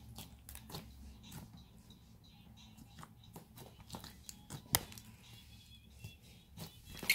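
Wet, water-loosened slime being kneaded and stretched by hand, giving off irregular sticky clicks and squelches, one sharper click about five seconds in.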